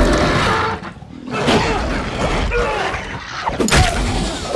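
Monster-fight sound mix: a heavy impact right at the start and another near the end, with crashing and the Demogorgon creature's growling cries between.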